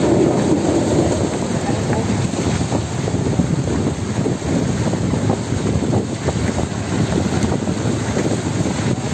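A net full of small tuna thrashing and splashing at the side of a boat: a dense, steady patter of splashes, with wind on the microphone and men's voices under it.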